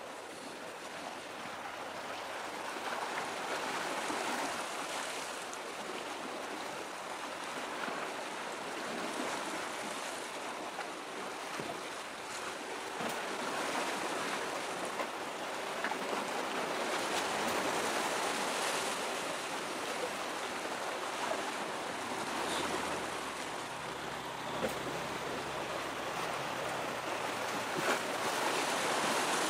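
Steady wash of waves and wind, swelling and easing slowly, with a faint low hum joining in near the end.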